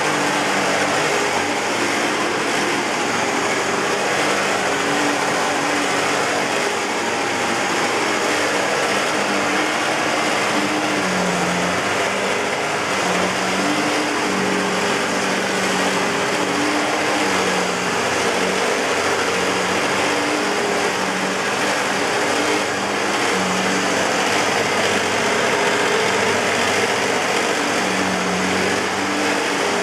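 2007 Hoover WindTunnel self-propelled bagless upright vacuum cleaner running steadily, with low tones that shift in pitch and come and go under the motor's rush. The machine has a bad belt-tensioner bearing, which shows up in its running sound.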